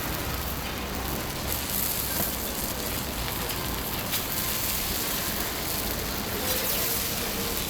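Steady sizzling of okonomiyaki frying on a hot iron griddle, with a few faint clicks.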